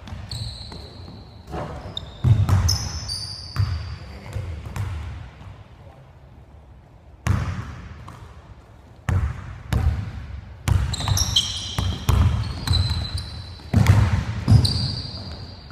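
A basketball dribbled on a hardwood gym floor, its bounces coming in irregular runs with a lull in the middle. Short high squeaks of sneakers cutting on the court come in with the dribbling.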